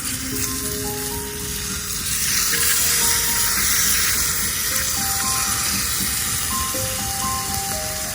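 Background music with a simple melody, over the steady hiss of beef steak sizzling in a pan; the sizzle grows louder about two seconds in.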